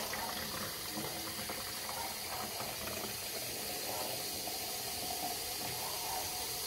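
Kitchen tap running a steady stream of water into a capsule coffee machine's plastic water reservoir, filling the tank.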